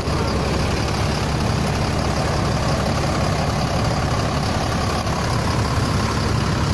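Heavy bus engine idling steadily.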